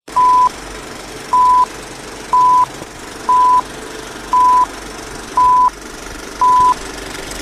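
Film countdown leader sound effect: a short, steady, mid-pitched beep about once a second, seven beeps in all, each about a third of a second long, over a constant hiss.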